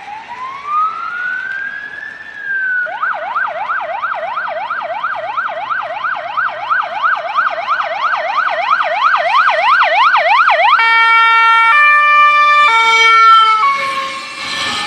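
Electronic siren of a VW Crafter fire engine sounding on approach. It starts with a slow rising and falling wail, then a fast yelp of about three sweeps a second. About eleven seconds in it changes to a few held horn-like tones stepping in pitch, and near the end the truck rushes past.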